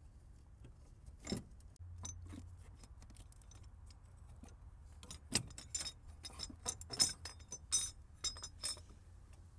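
Light metallic clicks and clinks, a steel engine mount bracket knocking against surrounding engine parts as it is worked into a tight space; the taps come irregularly and cluster in the second half.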